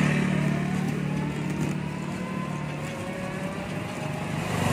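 Steady running noise of a small moving vehicle, heard from on board: a low motor hum with road and wind noise. The hum eases off about halfway through.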